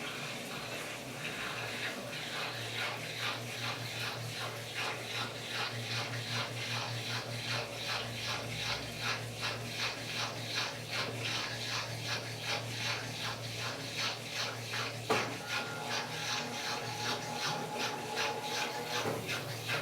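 Washing machine motor humming as the drum turns wet laundry in rhythmic swishing strokes, about two or three a second. This is the slow turn it makes before spinning, to shed the excess water so the load vibrates less. About three quarters of the way through there is a click, then a steady whine for a few seconds.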